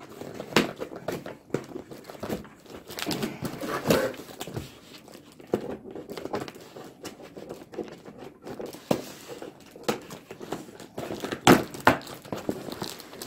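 Cardboard box and packing being handled and worked open: irregular rustling and crinkling with scattered knocks, the loudest a pair of sharp knocks near the end.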